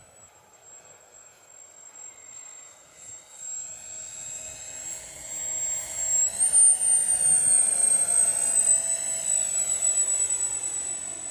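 Electric ducted fan of a 3D-printed RC model jet whining steadily as it makes a low pass, growing louder toward the middle and swooshing as it goes by. About six and a half seconds in the whine steps up in pitch, then slides slowly back down as the model flies away. A sharp click right at the start.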